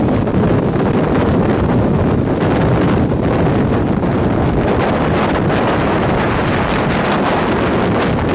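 Loud, steady rush of the tornado's strong winds buffeting a moving vehicle, heavy wind noise on the microphone mixed with the vehicle's road noise.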